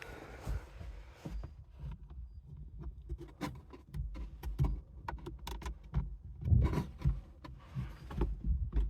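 Hand fumbling inside the opened tailgate panel at the latch mechanism of a stuck 2017 Nissan Rogue hatch, making irregular clicks, taps and knocks. The loudest knocks come about six and a half seconds in.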